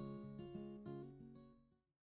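Background music, its notes fading out to silence near the end.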